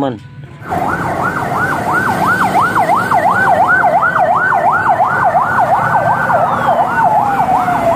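Military ambulance siren yelping: a fast rise and fall in pitch, about three sweeps a second, over street traffic noise. Over the last couple of seconds a second, slower tone slides down in pitch.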